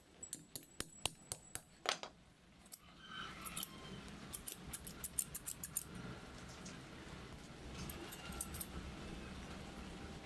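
Steel scissors worked open and shut by hand, giving sharp metallic clicks: a run of about eight in the first two seconds, a quicker run from about three to six seconds, and a few more about eight seconds in.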